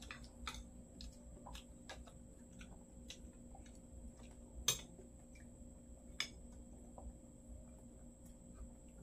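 Spoons and forks clicking and scraping on plates during a meal: scattered light clicks, with two louder ones a little past halfway. A faint steady hum runs underneath.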